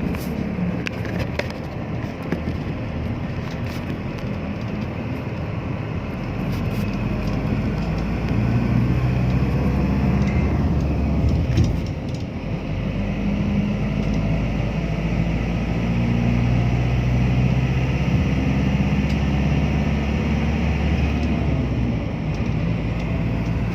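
Motor vehicle driving on a road: steady engine and road noise, with the engine note shifting a few times and getting louder about eight seconds in.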